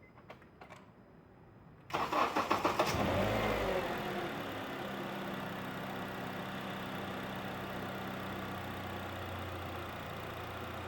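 A 2008 Honda Accord engine is cranked after a couple of faint clicks. About two seconds in it catches with a brief flare in revs, then settles into a steady idle. There is no start-up rattle after sitting for hours, now that the faulty variable valve timing (VTC) gear has been replaced.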